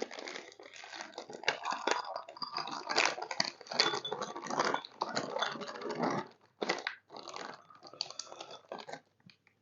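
Plastic ration-pack snack packet being handled and torn open, with irregular crinkling and crackling that thins out into scattered small rustles near the end.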